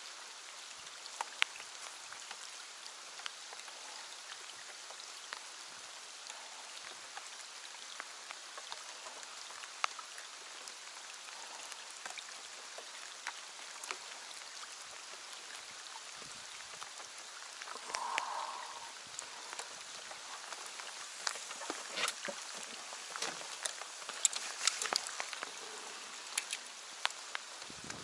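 Rain falling on the lake surface: a steady patter with scattered sharper drop ticks, which grow more frequent in the last third.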